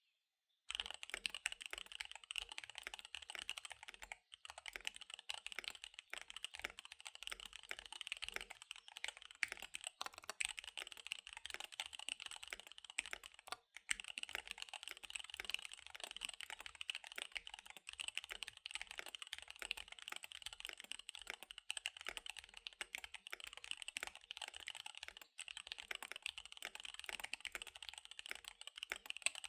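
Fast typing on a KBD75 V3 mechanical keyboard with SP-Star Dark Magic Girl tactile switches and DSA keycaps: a dense, continuous stream of key clicks. It starts just under a second in and breaks off briefly a few times.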